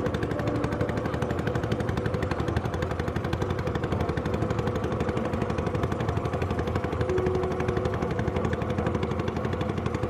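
Background music with a fast, even rattling pulse and a few brief held notes.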